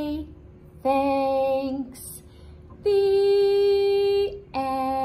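A woman singing unaccompanied in a slow phrase of long, steady held notes with short breaks between them. The longest note lasts about a second and a half.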